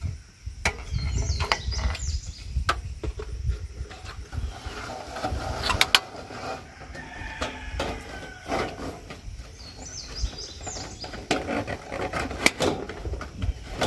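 Chickens clucking and calling, among scattered sharp clicks and knocks of plastic roof panels and clips being handled, over a steady low rumble.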